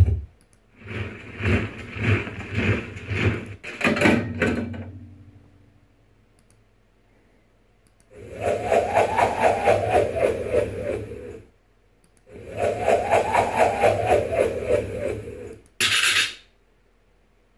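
A run of Final Cut Pro X library sound effects played through computer speakers, one clip after another with pauses between. First a few seconds of uneven pulsing sound, then two matching sounds of a few seconds each whose pitch rises and falls, then a short high burst near the end.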